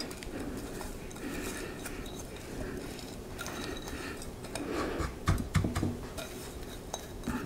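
Buttered graham cracker crumbs being tipped and scraped out of a mixing bowl into a pie dish: a low rustle with a few light knocks of a utensil against the dishes, mostly about five seconds in.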